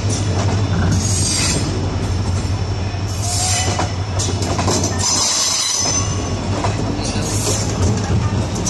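Indian Railways passenger coaches of an express train rolling past close by, wheels clattering over the rail joints and points. Several bursts of high-pitched wheel squeal come through, the longest about five seconds in.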